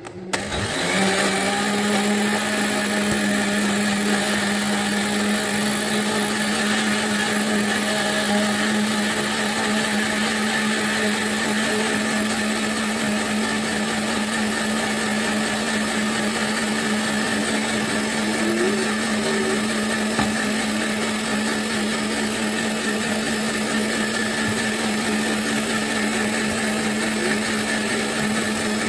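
Wansa countertop blender switched on and running at one steady speed, blending a white liquid cream mixture. The motor spins up over about a second, then holds a constant pitch.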